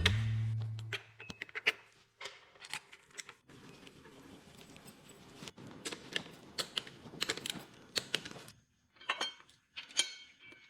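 A low, steady hum cuts off right at the start and fades out over about the first second. Then come irregular light clicks, taps and clinks of small hard objects being handled.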